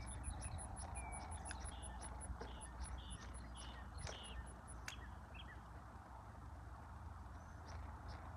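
Birds chirping now and then over a low steady outdoor rumble, with a faint high ticking about five times a second that stops about halfway through and a single sharp click near the middle.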